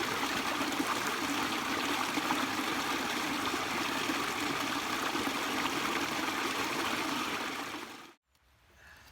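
Steady rush of running water, like a stream, that fades out about eight seconds in.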